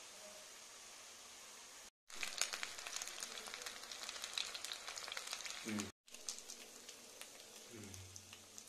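Potato bites deep-frying in hot oil: sizzling with dense crackling and popping. It begins as a faint hiss, turns loud and crackly about two seconds in after a cut, and is quieter again from about six seconds in.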